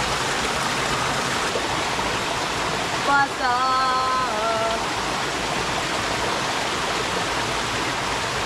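Steady rush of a clear jungle stream. A person's voice calls out once, about three seconds in, for a second and a half.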